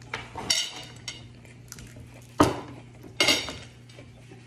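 Eating and tabletop handling noises: a few sharp clicks and crackles, the loudest about two and a half seconds in, over a low steady hum.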